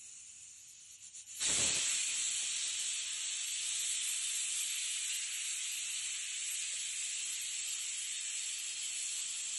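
Stovetop pressure cooker whistling: a faint hiss of steam that flutters briefly, then about a second and a half in a sudden loud, steady hiss as steam blows out under the whistle weight, the sign that the cooker has reached full pressure.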